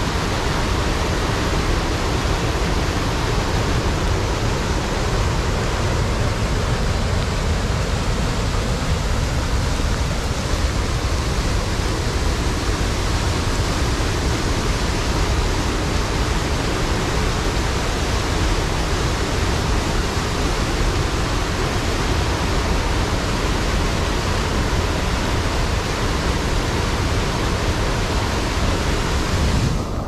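River water pouring over a low dam into whitewater, a steady rushing noise with no break.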